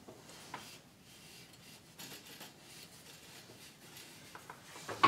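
Hands working yarn through the warp threads of a tapestry loom: faint rubbing and brushing of yarn against the taut warp, with a few soft ticks and a sharper knock at the very end.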